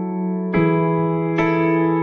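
Background music of slow, held keyboard chords, the chord changing about half a second in and again near one and a half seconds.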